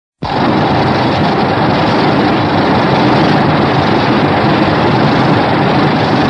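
Monster-film sound effect: a loud, steady rushing noise with no clear pitch, starting abruptly a moment in.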